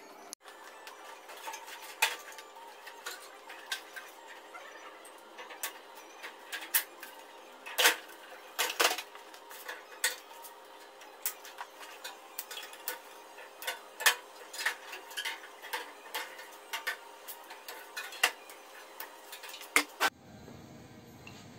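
Irregular metallic clinks, taps and knocks as the copper pipework and sheet-metal parts of an air-conditioner outdoor unit are handled and taken apart.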